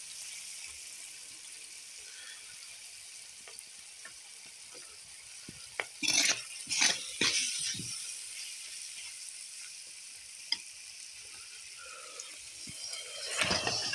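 Sliced onions and spices frying in oil in a metal pot, a steady sizzle, with a ladle scraping through them a few times about six to seven and a half seconds in.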